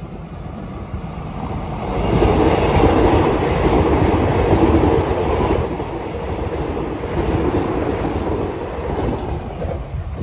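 KRL electric multiple-unit commuter train passing close by, its wheels running over the rails. The sound builds over the first two seconds, is loudest for the next few seconds as the cars go by, then eases slightly but carries on.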